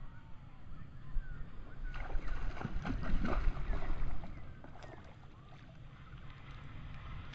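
Wind rumbling on the microphone by the water, with a burst of small clicks and crackles between about two and four seconds in and a few faint, short chirps.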